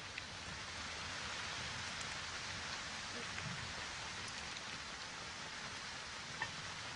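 Steady even hiss of outdoor background noise, with a few faint ticks and one small click near the end.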